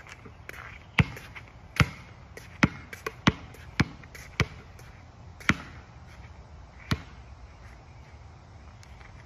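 Basketball bouncing on a hard outdoor court: about eight sharp, unevenly spaced bounces, the last about seven seconds in.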